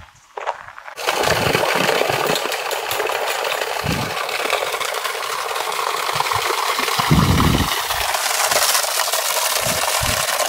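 Water pouring from a pipe and splashing onto rocks and into a pond: a loud, steady rushing that starts suddenly about a second in and stops suddenly at the end, with a few low thumps.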